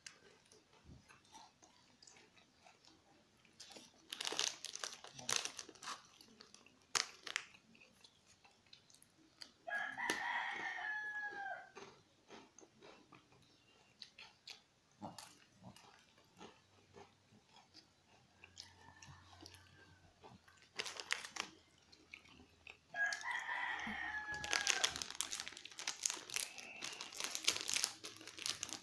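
A shih tzu crunching and chewing crackers in bursts of sharp, crisp crunches. A rooster crows twice, once about a third of the way in and again near the end.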